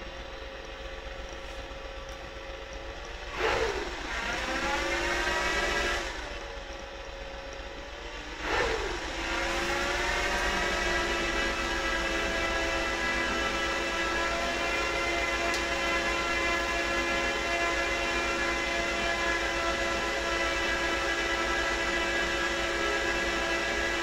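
Apple Xserve server's cooling fans spinning up at power-on: a first burst about three and a half seconds in that sets in suddenly, climbs in pitch and dies back after a couple of seconds, then a second spin-up about eight and a half seconds in that climbs and settles into a steady, loud whine.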